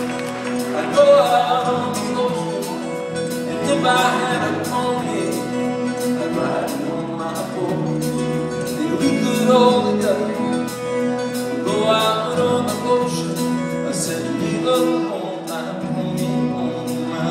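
Live country-folk band music with a steady beat: acoustic guitar with upright bass and drums, recorded from the audience.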